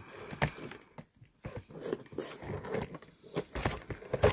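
A person chewing and eating cake close to the microphone: irregular chewing and mouth noises, clicks and smacks at uneven intervals.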